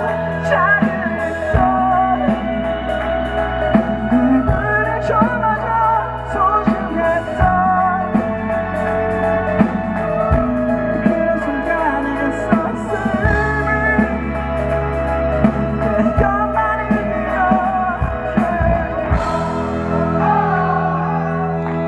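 Live rock band playing: electric guitars, bass and drum kit with a steady beat, and a singing voice carrying the melody over the top.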